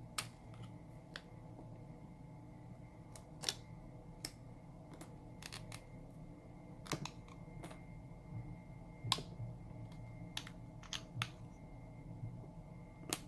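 Irregular sharp clicks and light taps of a small screwdriver and tweezers on the plastic parts of a Samsung Galaxy A71 as its screws are removed and the phone is taken apart, over a faint steady hum.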